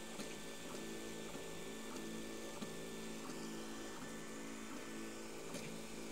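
Anet A8 3D printer printing the first layer of a bed-levelling test: its stepper motors hum in a stack of steady tones that change pitch with each move of the print head, over the steady hiss of the cooling fans.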